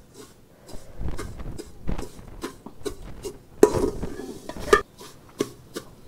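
Slotted steel ladle clinking and scraping against a steel pot as vermicelli is stirred and toasted in ghee: an irregular run of sharp clicks with a few longer scrapes.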